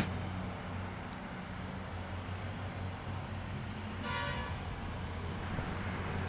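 Steady low machinery hum from the track renewal train, with a short horn toot about four seconds in.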